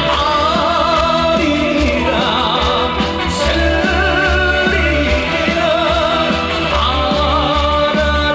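Trot song played live through a PA: a backing track with a steady beat and a melody line with heavy vibrato.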